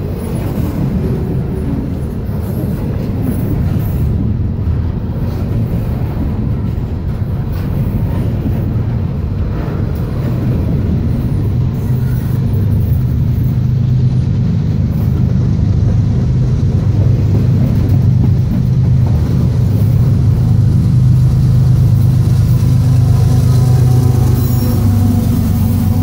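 CSX double-stack intermodal freight train rolling past at speed: a steady low rumble of wheels on rail that grows slowly louder. Near the end a steady hum joins in as a diesel locomotive in the train draws level.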